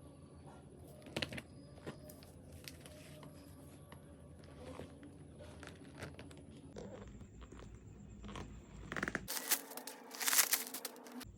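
Packaging being handled and opened during an unboxing: crinkling and rustling with scattered clicks, then two louder bursts of rustling and tearing near the end.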